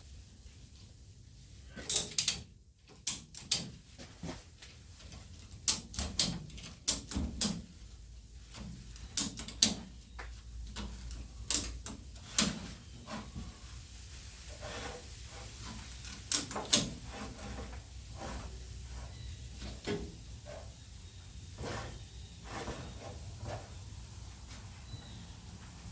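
Ratchet strap being cranked tight: short, irregular groups of sharp metallic clicks from the ratchet, with pauses between strokes.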